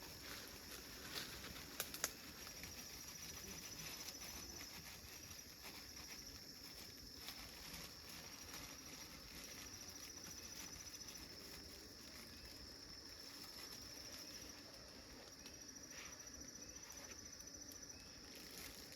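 Faint high-pitched insect trilling, steady but fading in and out, over quiet forest ambience, with a couple of sharp clicks about two seconds in.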